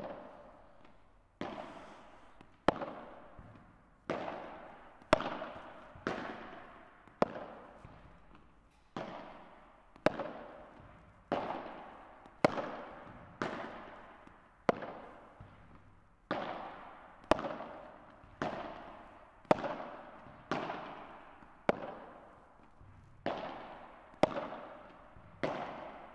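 Padel ball being struck back and forth with padel rackets in a steady feeding-and-return drill, a sharp pop of ball on racket about every second, each hit trailing off in a short echo.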